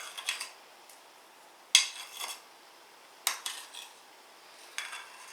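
A spoon knocking against a bowl as mayonnaise is spooned in: four short clattering clusters, one about every second and a half, each a sharp clack followed by a few lighter ticks.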